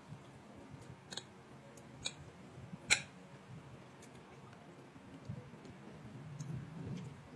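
Eating sounds: chewing, with a few sharp clicks of a metal spoon and fork against a plate, the loudest about three seconds in.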